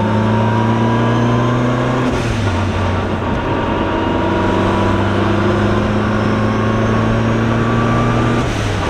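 Turbocharged 2015 Honda Civic Si's 2.4-litre four-cylinder engine heard from inside the cabin, pulling up through the revs under light throttle. Its pitch drops sharply about two seconds in as it shifts up, then climbs steadily again until another shift near the end.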